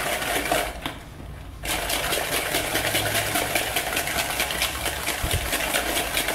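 Egg, oil and sugar being beaten by hand in a plastic bowl: quick, even wet strokes of the utensil through the liquid mixture, with a brief pause about a second in.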